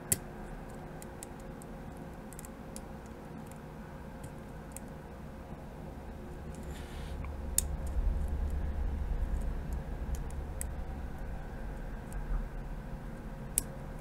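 Irregular small metallic clicks and ticks of a dimple pick working the pins of a Yale 2100 dimple lock cylinder under tension, with a sharper click just at the start and a few more later on. A low rumble of handling runs through the middle.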